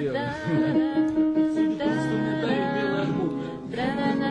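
Acoustic guitar music with a held melody line over it, as a song is played live in a studio.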